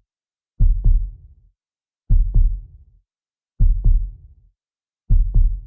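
Slow heartbeat sound effect: four evenly spaced lub-dub double thumps, about one and a half seconds apart.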